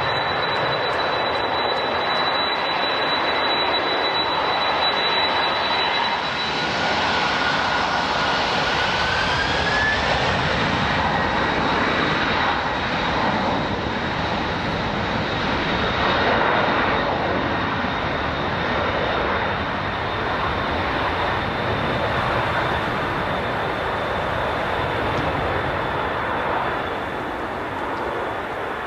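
Jet airliner engines running: a steady roar with a thin high whine over it. The whine shifts slightly in pitch about six seconds in, and the sound eases off a little near the end.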